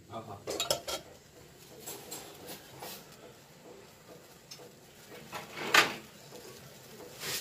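Scattered crackles and small pops from a steel wok heating on a gas burner with a thin film of oil, during seasoning; a louder cluster of crackling comes about six seconds in.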